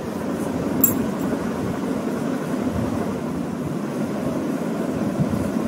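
Steady low rumbling background noise with no words, with a single short click about a second in.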